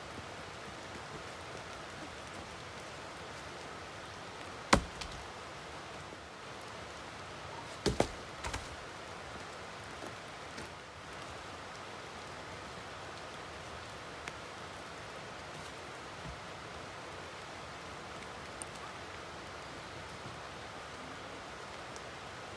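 Wood struck during work on a wooden floor: one loud sharp knock about five seconds in and a quick cluster of three knocks around eight seconds in. Behind them runs a steady rain-like hiss.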